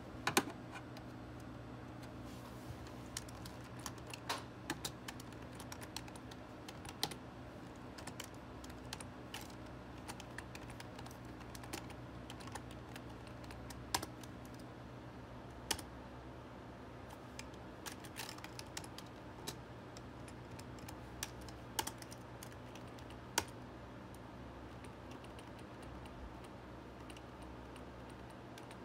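Computer keyboard typing: irregular, scattered keystrokes with a few louder single clacks, over a faint steady hum.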